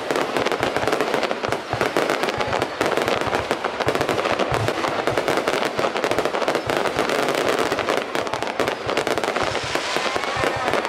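Fireworks crackling in a rapid, unbroken stream of sharp pops, many each second, with a deeper thud near the middle.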